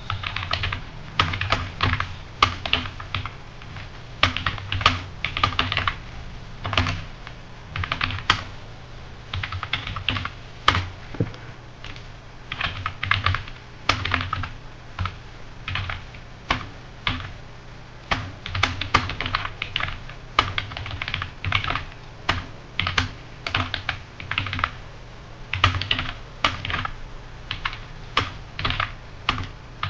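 Computer keyboard being typed on: quick runs of key clicks with brief pauses between them, as a passage is copied during a timed typing test.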